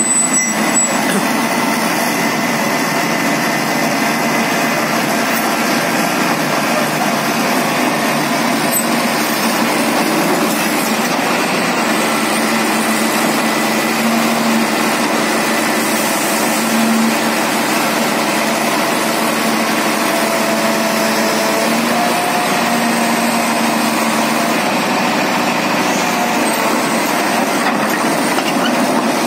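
Heavy diesel excavator engine running steadily under load while towing a Komatsu PC450 excavator, whose steel tracks roll and grind over the gravel.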